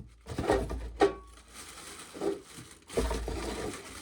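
Hand-handling noise while shelling corn: two sharp knocks, then a dry, crinkly rustle.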